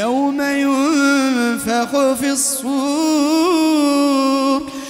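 A man's voice reciting the Quran in melodic, chanted tilawa, holding long drawn-out notes that waver and turn in pitch, with two brief breaks about a third of the way through.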